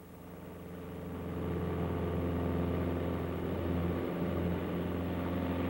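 Cessna A150 Aerobat's four-cylinder piston engine and propeller droning steadily, heard inside the cockpit. The drone grows louder over the first second and a half, then holds an even pitch.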